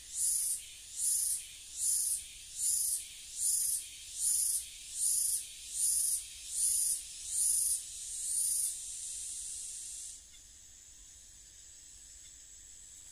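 Insect calling: loud, rhythmic high-pitched rasping pulses, a little over one a second, that stop about ten seconds in, leaving a fainter steady high drone.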